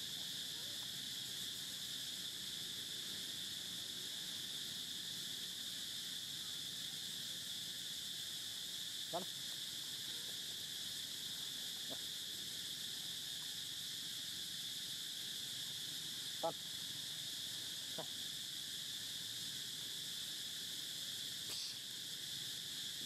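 Steady high-pitched drone of insects, with four brief sharp sounds standing out, the loudest about two thirds of the way through.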